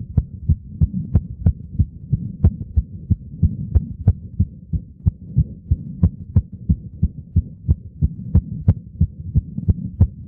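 An 8-year-old girl's heart beating fast and evenly after running and jumping, each beat a short thump over a steady low rumble.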